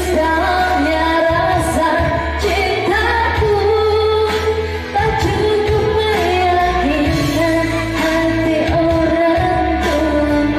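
Singer performing with an electone keyboard backing: a sung melody with sliding notes over a steady bass line and drum beat.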